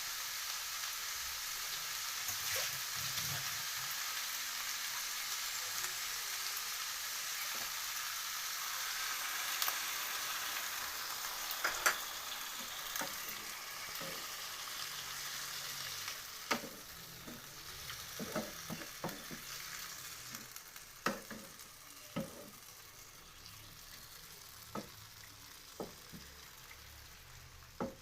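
Food sizzling as it fries in a pan and is stirred, with sharp clicks and knocks of a utensil against the pan. The sizzle is steady for about the first sixteen seconds, then dies down while the knocks go on.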